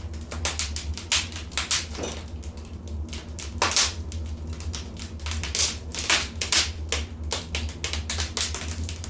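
Wood fire crackling in a fireplace: irregular sharp pops and snaps, several a second, with a louder pop near the middle, over a steady low rumble.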